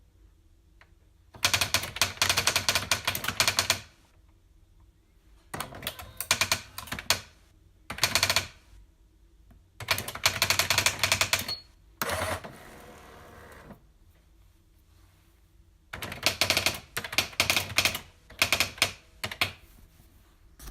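Typewriter keys struck in quick runs of clicks, in several bursts of half a second to about four seconds with quiet pauses between. In the middle there is a softer, more even rasping sound lasting about a second and a half.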